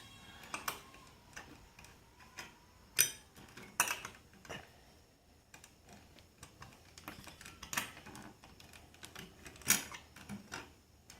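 Irregular clicks and clinks of small metal fan hardware and hand tools being handled, with a few sharper knocks.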